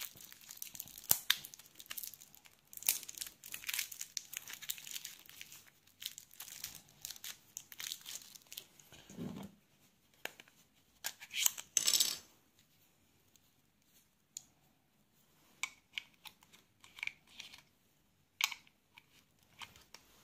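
Plastic wrap around a pair of AAA batteries being torn and crinkled open, with the clicks of batteries and hard plastic being handled. After that come sparse single clicks as the battery compartment of a UNI-T UT116C SMD tester is opened and a battery is fitted.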